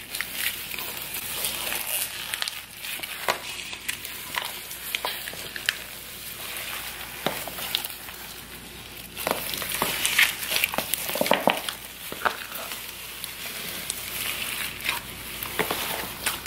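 Small foam beads crackling and crunching as hands knead them into a large mass of slime, a dense steady crackle with a run of louder clicks about nine to twelve seconds in.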